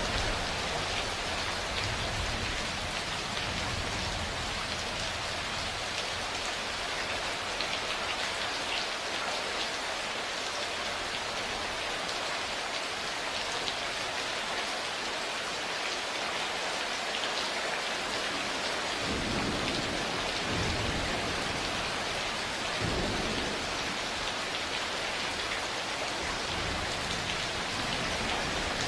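Steady rain falling and pattering on surfaces. Low rolls of thunder rumble underneath in the first few seconds and again about two-thirds of the way through.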